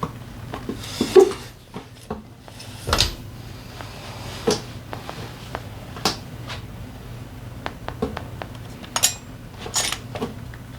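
Metal tools and engine parts clinking and knocking, a dozen or so separate sharp clacks, as a Honda PCX 125 scooter engine is taken apart, over a steady low hum.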